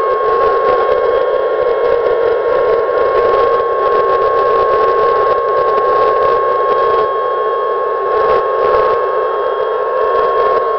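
Battery-powered toy jumbo jet playing its electronic jet-engine sound through a small speaker: a steady rushing noise with a high whine held on one pitch.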